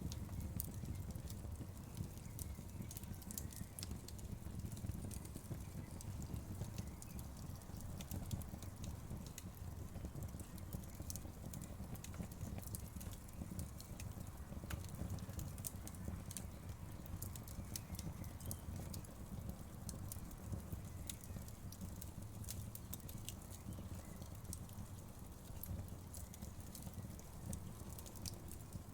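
Wood fire crackling: many small, irregular snaps and pops over a steady low rumble of the flames.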